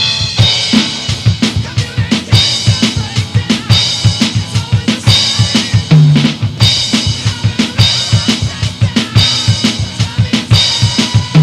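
Electronic drum kit played hard and fast: a rapid, steady stream of bass drum and snare strokes, with crash cymbals hit about once a second.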